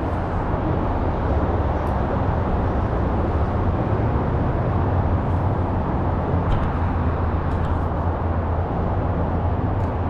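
Steady low rumble of road traffic on the concrete bridge overhead, carried down to the water, with a few faint ticks.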